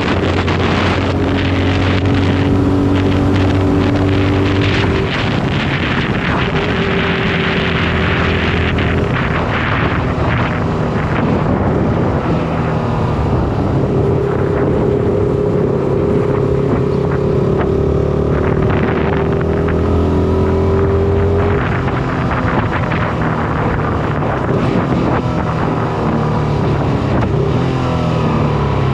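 Shineray SBM 250S motorcycle engine running under way, with wind noise on the microphone. The engine note holds steady for stretches, then steps and glides several times with gear changes and throttle, and falls near the end as the bike slows.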